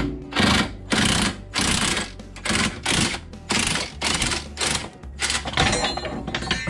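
Ryobi cordless impact driver hammering on a suspension bolt in repeated short bursts, about two a second.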